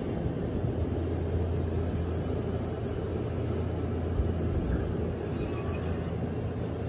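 Nankai 7100-series electric commuter train starting to pull out of a station: a steady low hum of its motors and running gear over a constant wash of noise.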